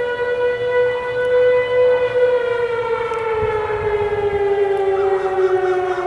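Outdoor warning sirens sounding together, heard from a distance: the Sick STH-10B in attack and the 3T22A in alert. One siren's tone holds steady, then glides slowly down about halfway through, over another siren's steady tone.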